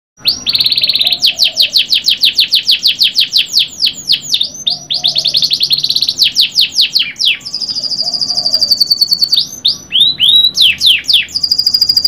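Domestic canary singing a long, unbroken song of rapid trills. Runs of quick downward-sweeping notes alternate with high, buzzy, steady rolls.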